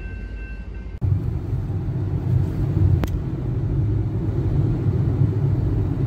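Steady low road rumble inside a moving car on a highway, with a single sharp click about three seconds in. It starts abruptly about a second in, cutting off the passing of an Amtrak California bilevel passenger train.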